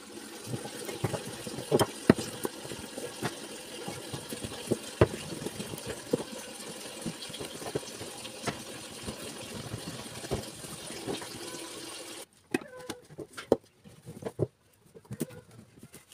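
Hand-held can opener cutting around the lids of metal cans, with irregular sharp clicks and scrapes of metal. A steady hiss underneath cuts off about 12 seconds in, after which only scattered clicks and knocks remain.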